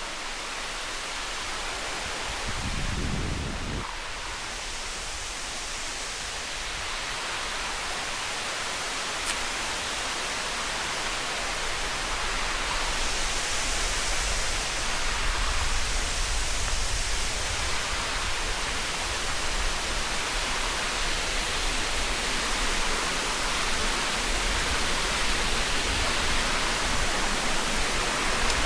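Rushing water of a waterfall, a steady hiss that grows gradually louder.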